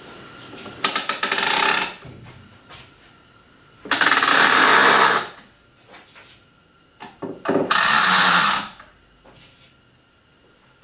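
Rope ratchet pulleys being hauled, giving a fast ratcheting buzz as the rope runs through. Three pulls of about a second each lift a sheet of drywall.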